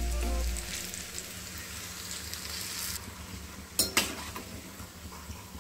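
Battered banana flower strips deep-frying in hot oil in a steel kadai, a steady sizzle. Just before four seconds in, two sharp clinks as a slotted metal spoon knocks against the pan while stirring.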